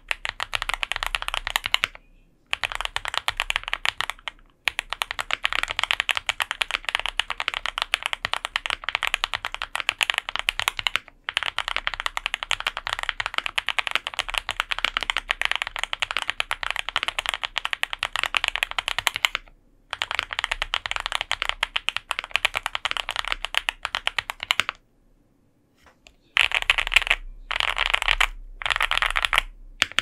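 Fast typing on a QK65 gasket-mount custom mechanical keyboard with lubed Moondrop tactile switches, an aluminium plate and GMK keycaps: dense runs of key clacks with short pauses every few seconds. Near the end comes a longer pause, then a few short bursts of keystrokes.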